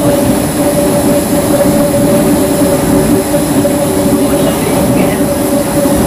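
CPTM Series 1700 electric multiple unit standing at the platform, its motor equipment giving a steady hum with a held mid-pitched tone and a faint high whine.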